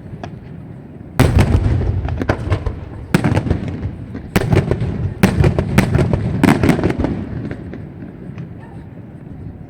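Fireworks display: about five loud bangs of bursting aerial shells roughly a second apart, each trailing into dense crackling, fading away near the end.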